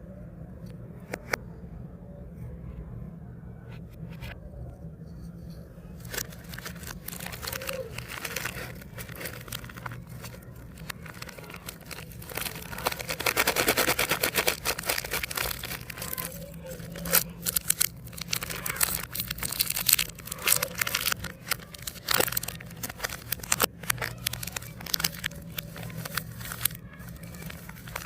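Plastic biscuit and chocolate wrappers crinkling and being torn open: scattered crackles, then a dense stretch of crinkling and tearing about halfway through, followed by many sharp crackles. A steady low hum runs underneath.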